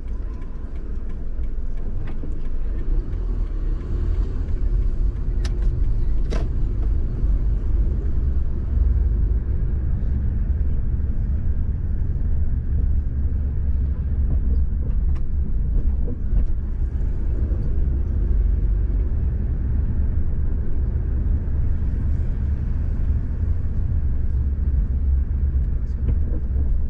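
Car driving slowly, heard from inside the cabin: a steady low rumble of engine and road noise, with two sharp clicks about six seconds in.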